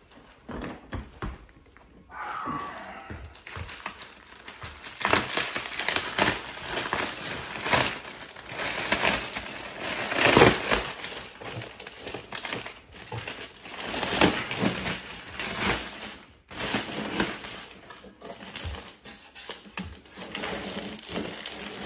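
Clear plastic wrapping being pulled and crumpled off a box by hand, crinkling and crackling in irregular bursts.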